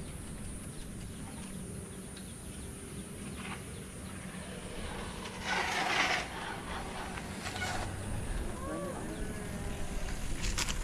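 Wind and tyre rumble from a mountain bike rolling downhill on a paved road, recorded on the rider's camera. There is a short louder noisy burst about halfway through, and a few brief rising-and-falling calls near the end.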